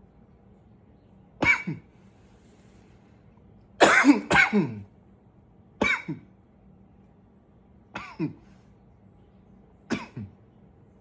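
A man coughing: short double coughs about every two seconds, five bouts in all, with a longer, louder run of coughs about four seconds in.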